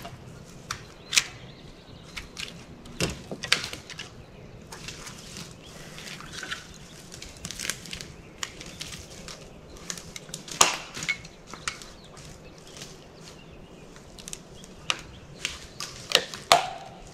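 Thin tree trunks levered in the gap between two standing trees to break them for firewood without a saw: irregular knocks and cracks of wood. The loudest crack comes about ten seconds in, and two more come close together near the end.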